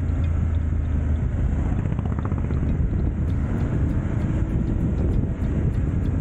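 Motorcycle engine running under way, with wind and road noise over the bike-mounted microphone; the engine note rises slightly in the second half.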